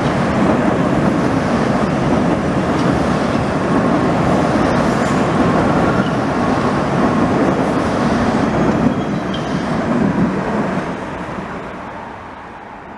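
Vienna U-Bahn metro train running past on open track, a steady loud rumble of wheels on rails that fades away over the last couple of seconds as the train pulls off into the tunnel.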